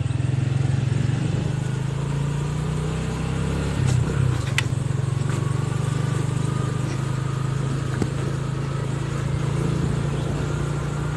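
Small motorcycle engine running steadily while being ridden, heard from the rider's seat, with a brief rise in level about four seconds in.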